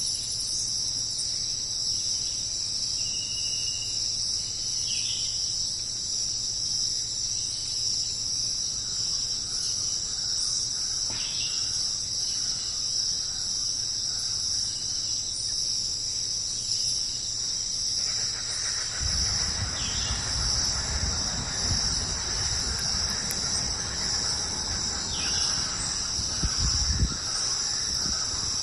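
Steady high-pitched chorus of insects, crickets or cicadas, with a few short bird chirps. About two-thirds of the way in, a low rumble and a rushing noise join.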